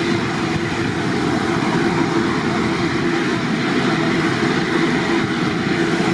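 Boeing 787 airliner's twin turbofan engines at low taxi thrust as it rolls slowly past: a steady rumble and hiss with a faint steady whine.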